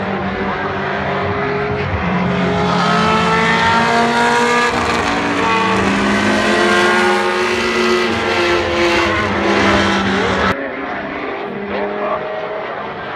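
Formula One car engine at high revs on track, its pitch climbing and dropping again and again through gear changes. The sound cuts abruptly to a duller, quieter engine note about ten and a half seconds in.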